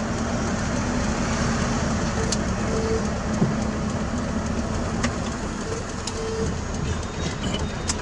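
Fuso truck's diesel engine running steadily, heard from inside the cab as the truck rolls slowly through a turn, with a short low beep about every three and a half seconds.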